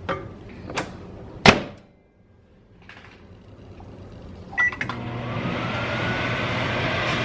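Microwave oven handled and started: a few knocks, the loudest about one and a half seconds in like its door shutting. About five seconds in come a few clicks and a short beep, then the oven runs with a steady hum.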